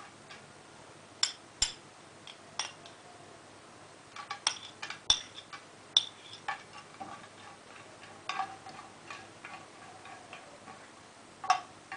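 Metal spoon clinking and scraping on a ceramic plate and a non-stick frying pan as toasted pine nuts are spooned into the pan. It comes as an irregular run of sharp clicks and taps, a few of them louder about five and six seconds in.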